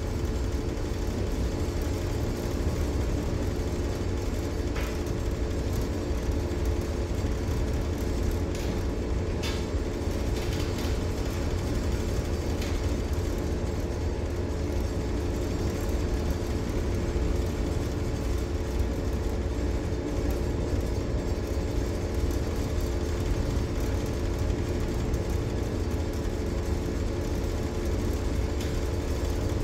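Steady machinery hum of a tanker under way, over a fluttering low rumble of wind on the microphone.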